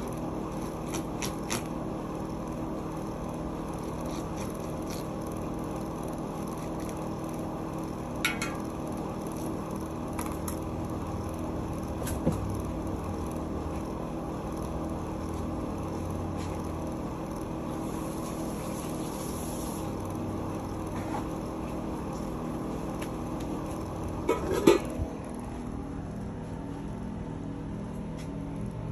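Steady kitchen background hum with a few light knocks and clicks from handling on the work table, a short cluster of them, the loudest, about three-quarters of the way through.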